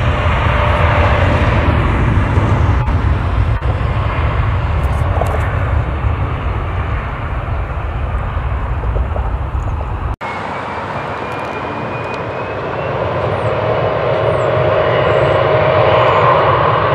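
Jet airliner engines across an airfield: a heavy steady roar, then after a sudden break about ten seconds in, a higher engine whine that swells louder near the end.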